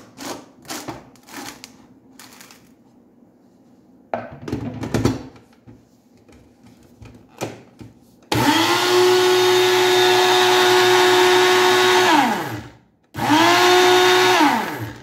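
Personal blender motor running in two bursts, blending egg yolk and oil into mayonnaise: one run of about four seconds that winds down in pitch as it stops, then a second shorter burst of about a second and a half. Before the motor starts there are clicks and knocks of the blender cup being handled and seated on the base.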